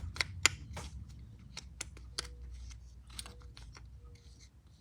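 A dozen or so irregular sharp plastic clicks as the kill switch in the opened top handle of an Echo CS-355T chainsaw is flipped back and forth by hand. A faint low hum runs underneath.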